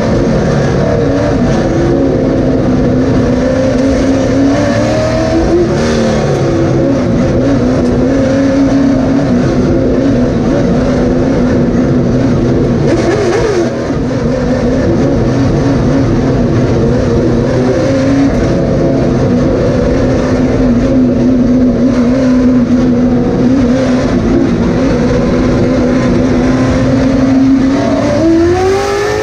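Late model stock car's V8 engine heard from inside the cockpit, running at a nearly steady pitch for long stretches. The pitch rises and dips briefly about five seconds in, then climbs near the end as the car accelerates.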